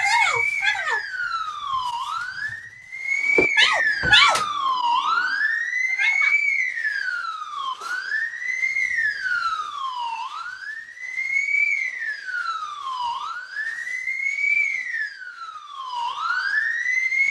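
Emergency-vehicle siren wailing, its pitch rising and falling slowly and evenly, one cycle about every three seconds. A few short, sharp clicks and quick pitch sweeps cut in about three to four seconds in.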